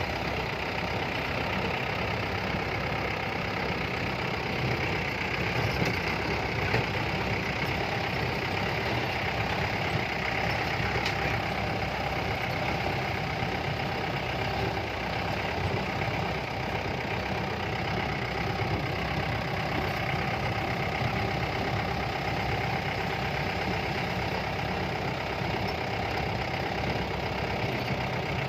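Mahindra jeep's engine idling steadily.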